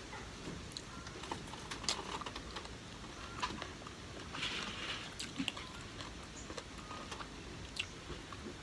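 Close-miked eating sounds: chewing, with scattered light clicks and taps.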